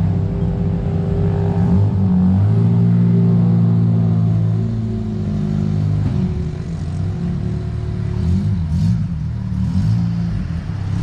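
Car engine being revved, held at a steady higher speed for a few seconds and then rising and falling unevenly.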